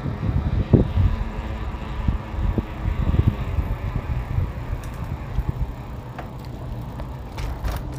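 Wind rumbling on the microphone and road noise from a bicycle being ridden, with scattered light clicks and rattles.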